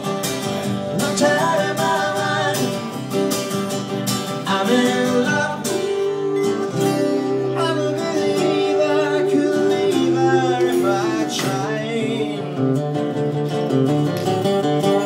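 Live acoustic duo: two acoustic guitars strummed in a steady rhythm with a man singing into a microphone.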